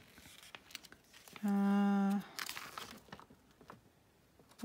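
Paper rustling and crinkling as a folded instruction booklet is opened and its pages handled, with small clicks of handling throughout. About a second and a half in, a woman gives a short, steady hummed "hmm" while reading.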